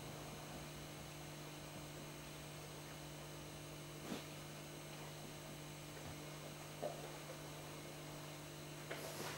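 Steady low electrical hum over faint hiss: quiet room tone, with a faint click about four seconds in and another faint blip near seven seconds.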